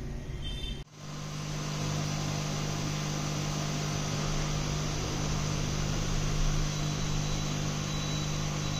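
A steady machine hum with a constant low drone and an even hiss over it, starting after a short break about a second in.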